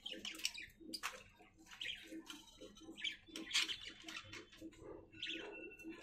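Budgerigars chirping and chattering: many quick, irregular short calls, with a brief held whistle near the end.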